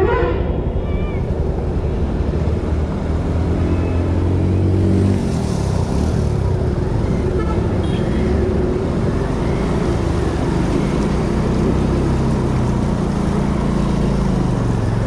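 Motorcycle engine running at low speed as the bike rides through floodwater, its note wavering up and down over a steady rushing noise of water and wind.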